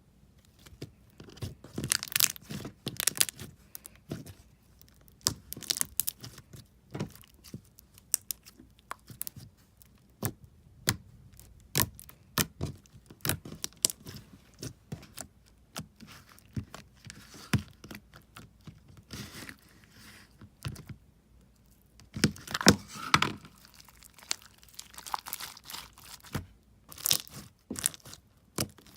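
Slime being squeezed and stretched by hand, with irregular sharp pops and crackles that thicken into dense crackling a couple of times.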